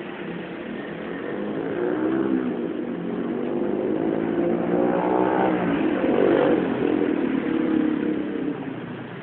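Motor vehicles passing one after another on a wet road. Their engine notes rise and fall as each goes by, growing louder through the middle and dropping away near the end.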